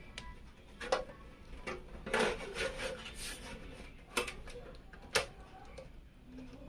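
PC components and case parts being handled and fitted: four sharp clicks and knocks, with rubbing and scraping between them.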